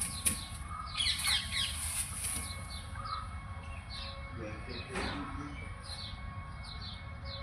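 Small birds chirping over and over, short falling chirps about twice a second, over a steady low outdoor rumble.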